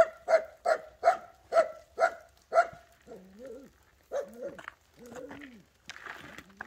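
A dog barking off-camera, about seven barks in quick succession, then a few lower drawn-out calls that bend up and down in pitch. A brief rustle of soil being pressed down by hand comes near the end.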